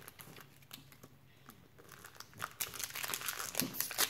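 Foil wrapper of a Pokémon booster pack crinkling as it is opened by hand: a few small crackles at first, then a dense run of crinkling from about halfway through.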